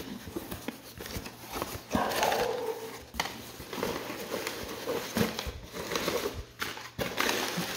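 Hands rustling crumpled paper packing and a plastic bag inside a cardboard box, with scattered light knocks and clicks as the box flaps are handled.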